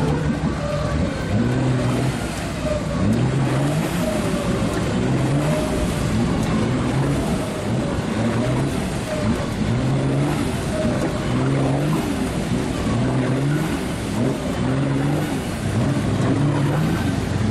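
A 4x4's engine revving up and dropping back again and again, about once every second and a half, as the truck is driven bogged down through deep mud and water.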